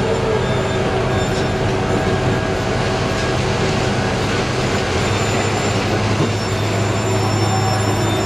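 Heavy earth-moving machinery running steadily: a constant diesel engine drone with mechanical noise over it.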